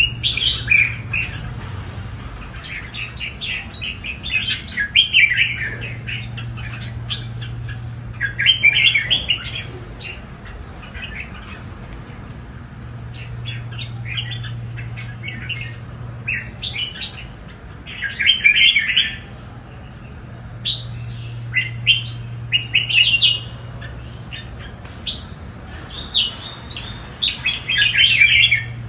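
Caged red-whiskered bulbuls singing, quick chirping phrases in short bursts every few seconds, over a steady low hum.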